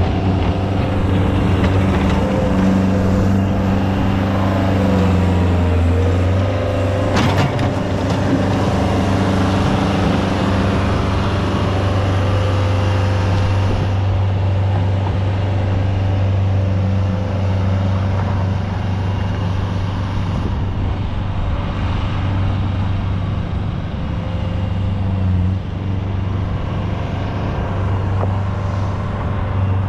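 Engine of heavy construction equipment running steadily under load, with a single sharp clank about seven seconds in.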